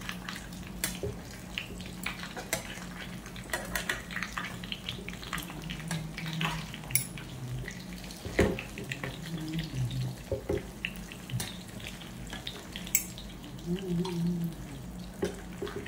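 A metal ladle and spoon clinking and scraping against a non-stick frying pan as chicken and potato pieces are turned over, in irregular sharp clicks, over a faint sizzle of frying.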